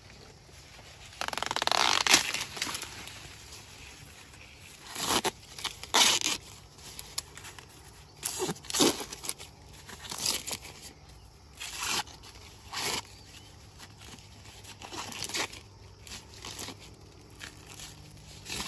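Green corn husks on an ear of Tuscarora white corn being torn and peeled back by hand, in a series of short rips, with a longer rustle of leaves and husk about a second in.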